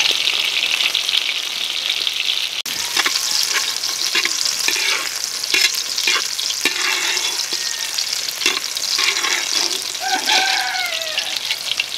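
Longganisa sausages sizzling in a steel wok as they fry in their own rendered fat. From about three seconds in, a metal spatula scrapes and taps against the wok as the sausages are turned.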